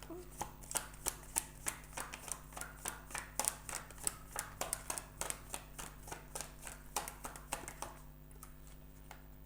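Tarot cards being shuffled and handled: a run of sharp card snaps and taps, about one to two a second, stopping about eight seconds in.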